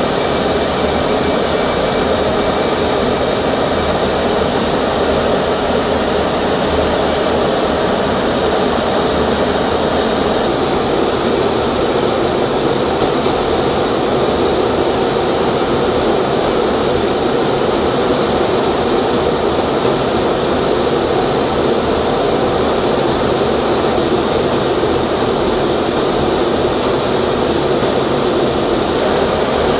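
Steady jet engine drone and rushing air of an aircraft in flight, heard from aboard the filming aircraft. The high hiss drops somewhat about ten seconds in, while the low steady rush goes on.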